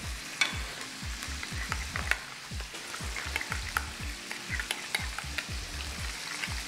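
A metal utensil stirring thick mayonnaise sauce in a glass bowl, with frequent clicks against the glass, over the steady sizzle of blue swimmer crab frying in a pan. Regular low thuds sound underneath, about two or three a second.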